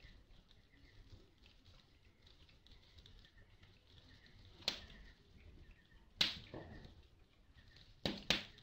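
Burning firewood under a pan crackling: sharp single pops about halfway through and a second and a half later, then a quick pair near the end, over a faint background.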